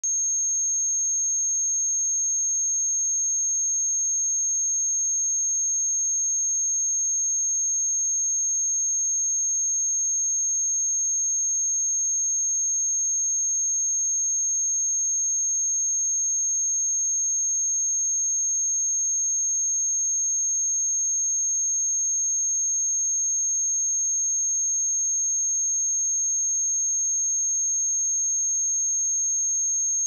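A steady, unbroken 6458 Hz sine-wave test tone: one pure high-pitched note at constant loudness, used for testing speakers and headphones.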